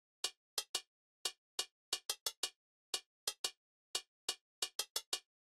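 A single hi-hat percussion sample from a trap beat, playing alone from a DAW in a syncopated pattern of short, sharp ticks at two pitches. The pattern stops just before the end.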